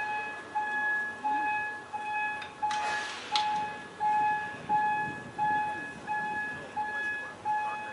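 Warning beeper of a railway turntable sounding while the turntable rotates with a steam locomotive on it: one repeated pitch, about one and a half beeps a second. A brief hiss about three seconds in.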